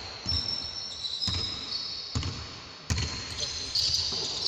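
A basketball bouncing on a hardwood court, about once a second, with sneakers squeaking on the floor and a sharp smack just before the end of the third second.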